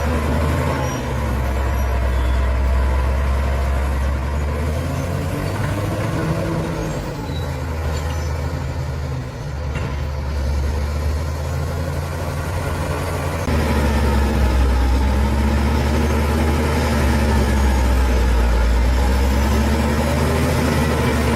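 Bulldozer's diesel engine running under load, its pitch rising and falling as the work varies, and growing louder about two-thirds of the way through.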